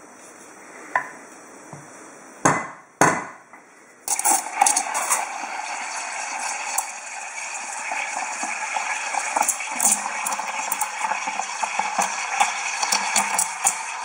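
A portafilter knocked twice against a metal knock box to empty the spent coffee puck. Then, about four seconds in, the espresso machine's steam wand starts hissing steadily into a steel pitcher of milk, with a light crackling as the milk is steamed.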